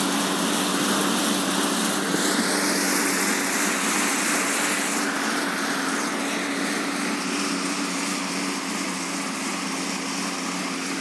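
Assault AirBike fan whirring steadily as it is pedalled hard, its pitch climbing over the first couple of seconds.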